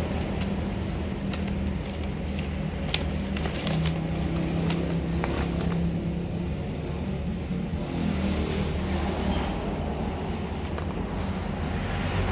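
Steady low mechanical rumble with a hum, and scattered light clicks.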